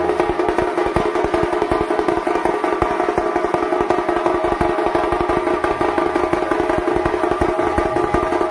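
Dhol-tasha drum troupe playing without a break: rapid, dense tasha strokes over dhol beats, with a steady ringing tone underneath.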